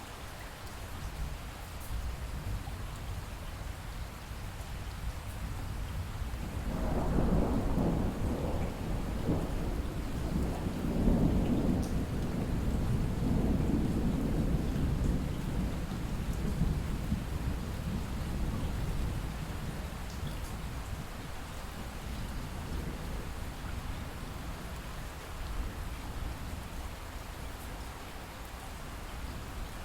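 Steady rain falling, with a long roll of thunder that starts about seven seconds in, swells and rumbles for several seconds, then slowly fades away.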